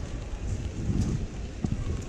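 Wind buffeting a GoPro's microphone as a low rumble that swells about a second in, over a steady hiss of rain.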